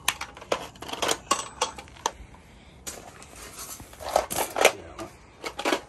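Scattered clinks and knocks of metal tools and parts being handled and set down on a concrete floor, with a quick run of sharper clicks about four seconds in.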